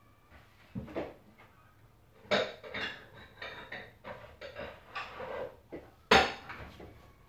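Dishes and kitchenware clattering: a run of sharp clinks and knocks, with the loudest knock about six seconds in.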